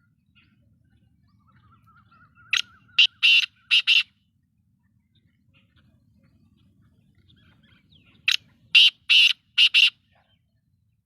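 Black francolin calling: two phrases of five short, rasping notes each, about five seconds apart.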